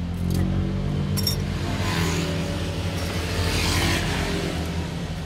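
An engine running steadily at idle, with a rushing noise that swells twice, around two and four seconds in.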